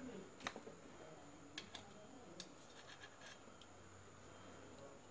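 Faint scratching and a few light clicks of insulated wires being handled, their ends twisted together by hand.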